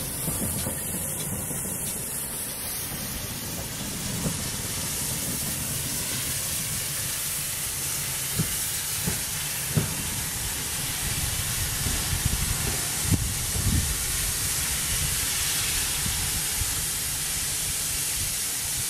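GWR 6400-class 0-6-0 pannier tank steam locomotive No. 6412 moving slowly past and away, with a steady hiss of steam and a few short knocks in the middle.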